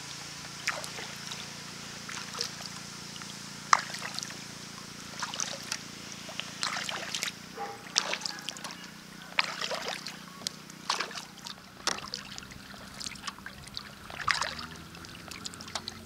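Kayak paddle strokes: water splashing and dripping off the paddle blades in irregular clusters every second or so, over a low steady hum.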